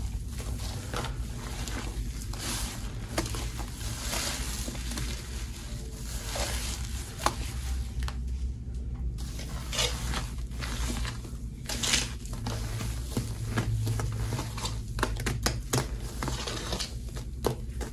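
Hands squeezing and kneading a thick, fluffy paste of scouring powder, powdered detergent and boiled bar soap in a stainless steel bowl: irregular squishing and crackling, with a brief lull about eight seconds in. A steady low hum sits underneath.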